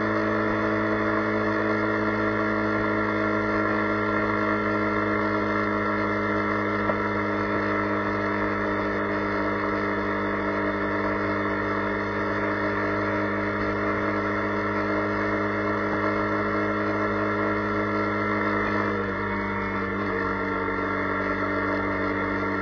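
Steady droning hum made of several even tones over a rushing noise, picked up by a camera mounted on the front of a vehicle travelling at about 75–80 km/h in rain. The hum shifts slightly near the end.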